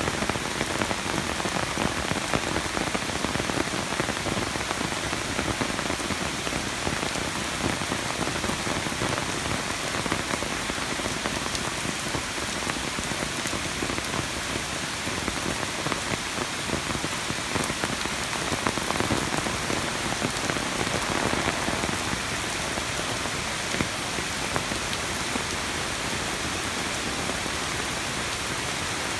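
Steady, even hiss of water that does not let up, from a creek in flood or rain falling on it.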